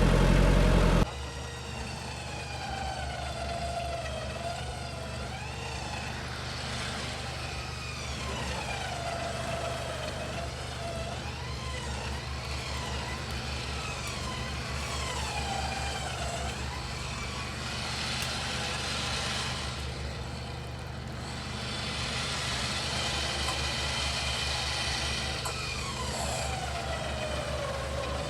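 An off-road 4x4 driving slowly on a rough forest track: the engine runs steadily underneath, with a whine that rises and falls in pitch as the throttle changes. There is an abrupt change in the sound about a second in, and there are patches of hiss in the second half.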